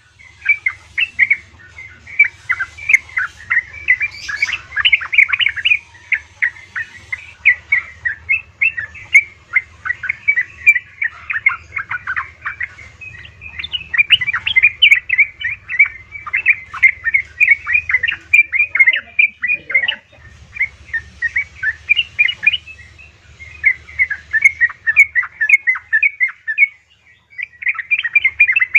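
Yellow-vented bulbul calls: quick, bubbly chirps in long runs, with short pauses a few times. The uploader presents them as a female calling to a male, used as a lure to get caged birds singing.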